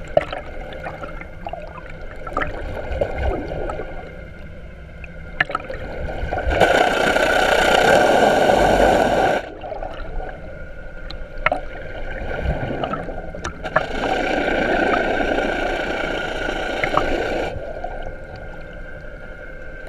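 Water gurgling and rushing around the camera over a steady boat engine hum. There are two louder stretches of rushing water, about three and four seconds long.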